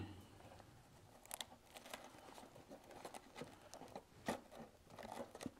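Faint scattered taps and rustles of fingers pushing a small wooden miniature window frame into a tight opening in a model garage wall.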